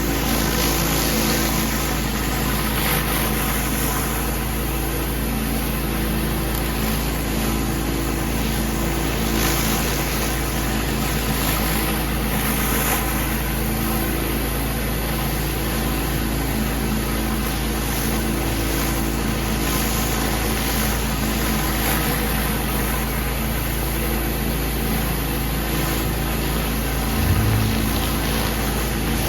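Gas pressure washer running steadily: an engine drone under the constant hiss of the water spray, with a brief low thump near the end.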